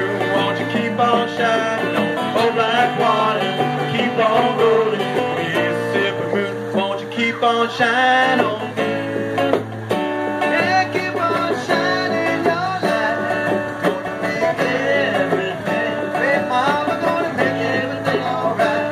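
Live acoustic music: a man singing over a strummed acoustic guitar, with hand drums keeping the beat.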